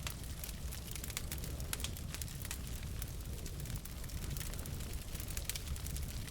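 Wood fire burning in a fireplace: logs crackling and popping in quick, irregular clicks over a steady low rumble of flame.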